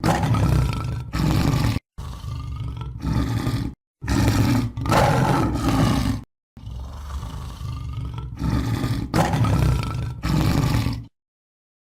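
Tiger roaring and growling: a string of deep, loud roars edited together, separated by short gaps of dead silence, cutting off abruptly near the end.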